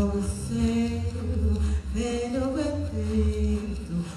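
A woman's voice singing long held notes that glide from one pitch to the next, over a steady low bass tone.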